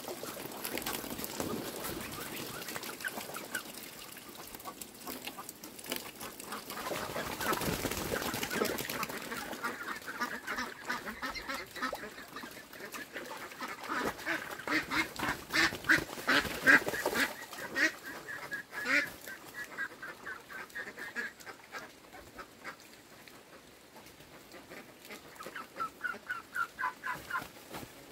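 Domestic ducks calling in quick rattling series of quacks, loudest in the middle and again near the end.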